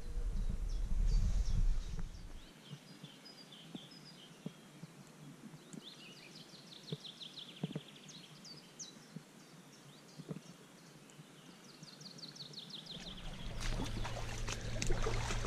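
Small birds singing quick trills of repeated high notes over a quiet background, after a low rumble that stops about two and a half seconds in. Near the end a rustling with crackles builds up as someone pushes through reeds and brush.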